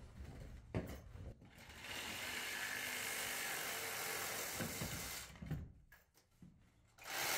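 Hand tools working ABS drain pipe: a steady mechanical noise lasting about three seconds, starting about two seconds in, with a few knocks around it.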